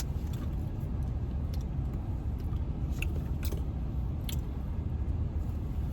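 Someone biting and chewing a Korean corn dog, with a few short crunchy clicks, over a steady low rumble.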